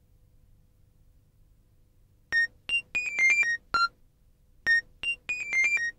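Monophonic mobile phone ringtone: a short beeping melody of about ten quick notes, played twice.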